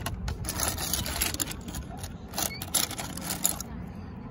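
Seashells, mostly scallop shells with conchs and coral, clattering and clinking against each other in a plastic bucket as a hand stirs through them, in two short bouts of sharp clicks.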